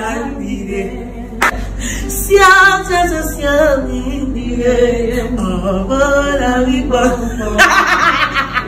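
A woman singing a gospel song unaccompanied, her voice gliding through long held notes. Near the end she breaks into laughter.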